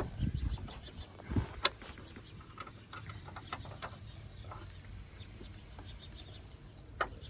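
A few light metallic clicks and clinks of hand tools working on the car, the clearest about one and a half seconds in and another near the end, over quiet steady background noise.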